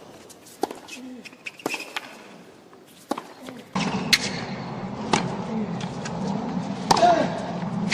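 Tennis rally on a hard court: sharp racket-on-ball strikes, roughly one a second with gaps. A few seconds in, a louder murmur of stadium crowd comes in under more strikes.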